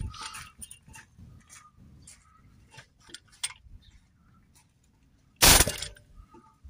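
Pneumatic air hammer with a chisel bit firing one short burst against a seized DPF fuel vaporizer about five seconds in, to shake its thread loose. Before it there are only scattered light metallic clicks.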